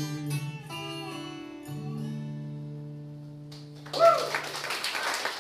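Closing notes of an acoustic guitar and Dobro ringing out and slowly fading at the end of a song. About four seconds in, the audience breaks into applause, with a short cheer as it starts.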